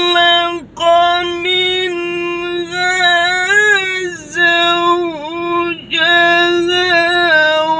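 A man reciting the Quran in the melodic tajwid style, holding long ornamented notes in a high register, with two short breaks between phrases. His bare voice, without a microphone.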